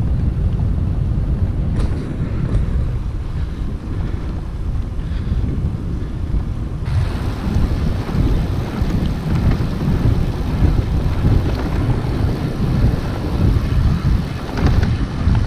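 Wind buffeting the microphone of a bike-mounted action camera on a moving bicycle, a loud, steady low rumble. About seven seconds in it turns abruptly brighter and hissier.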